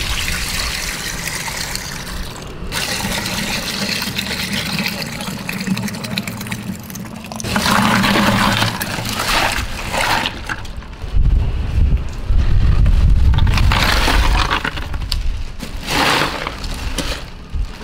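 Chocolate drink pouring in a thick stream from a plastic bag into a glass drink dispenser, splashing and frothing. About eight seconds in a second, louder pour comes from another plastic bag. Later come loud low thumps and rustling as a bag of ice is handled.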